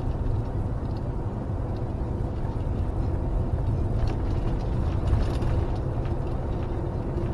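Motorhome engine and road noise heard from inside the cab while driving: a steady low rumble with a few light clicks and rattles.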